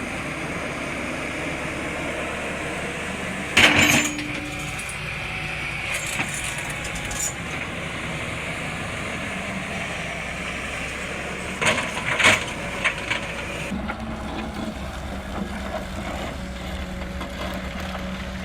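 Sany 210 crawler excavator's diesel engine running steadily, with a loud sudden bang about three and a half seconds in and a few sharp clanks about twelve seconds in.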